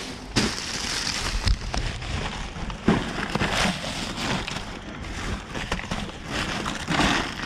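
Rummaging through plastic trash bags: steady crinkling and rustling of plastic, with a few sharp knocks of items being handled, about half a second in, about three seconds in and near the end.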